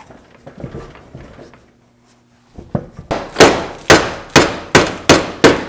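Hand hammer striking metal on the truck's front end: a run of about eight sharp blows, two to three a second, starting about halfway through, knocking a stuck part loose.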